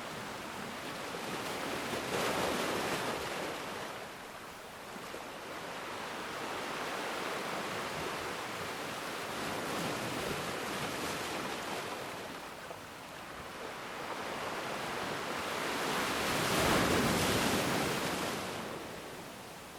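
Ocean surf: waves breaking and washing ashore in slow swells of rushing water, three surges that rise and fall, the loudest near the end.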